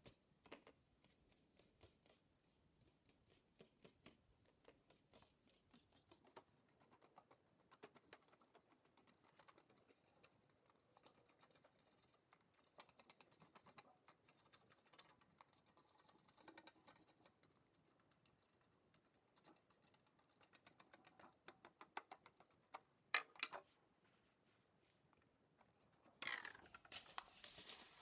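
Faint tapping and dabbing of a paintbrush on thin embossed metal foil as black paint is worked into it, with a few sharper clicks about 23 s in. Near the end, louder rustling of paper handled against the foil.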